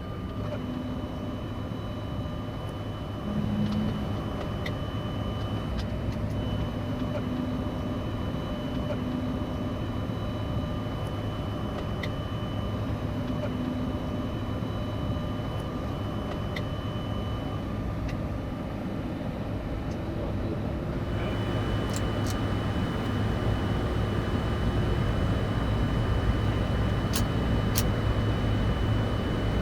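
Steady flight-deck ambience in a Boeing 747-400 freighter cockpit: a rush of fans and air conditioning with a low hum and a thin high whine. It grows louder about two-thirds of the way in, and a few sharp clicks come near the end.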